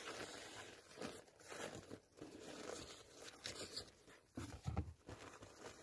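Thin paper napkin wrapping rustling and crinkling in faint, irregular bursts as a small gift is unwrapped by hand, with a soft low bump about four and a half seconds in.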